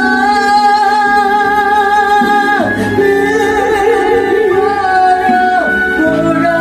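A solo gospel song: a singer holds long notes over instrumental accompaniment, each note sliding down at its end, about two and a half seconds in and again near the end.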